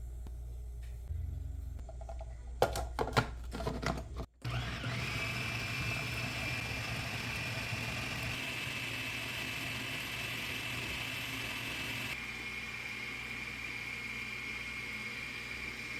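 A few knocks and clicks, then, after a brief break, a small electric motor starts and runs steadily with a high whine that shifts slightly in pitch about three-quarters of the way through.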